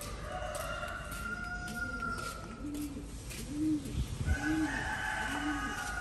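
A dove cooing: a low, arched note repeated about once a second through the second half, over scattered clicks and some higher held tones.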